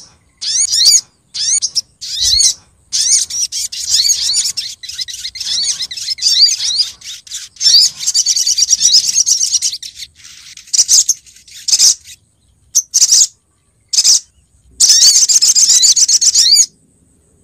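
Female brown-throated sunbird (sogok ontong) giving rapid, high twittering chirps in bursts, with short silent breaks. This is a lure call meant to draw males in.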